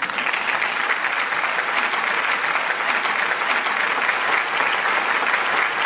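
Applause: many hands clapping at an even, steady level, starting suddenly.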